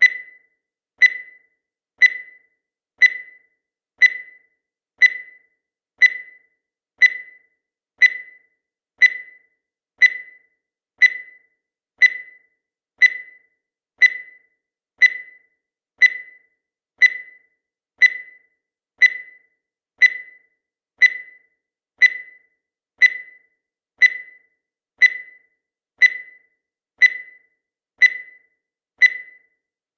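Countdown timer sound effect: a short, high beep once every second, each one dying away quickly.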